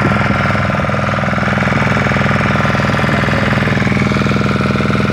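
Boat's motor running steadily with a fast, even chug while the boat is under way.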